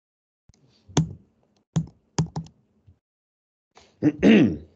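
Laptop keys pressed sharply about four times, one at a time, as a slide deck is advanced; a brief sound from a man's voice comes near the end.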